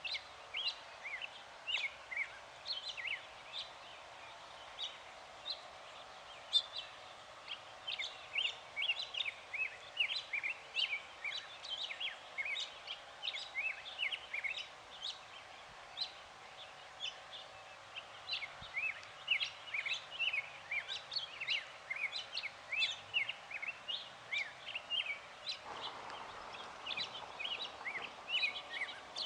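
Birds chirping in a busy chorus: many short, high calls, several a second without a break. A soft rushing noise rises under them near the end.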